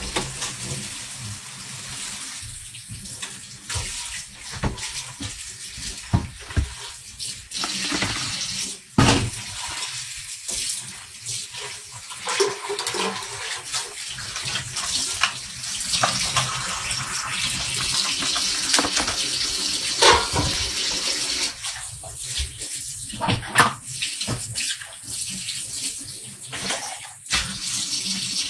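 Water running from a tap into a sink, with occasional short knocks and clatter.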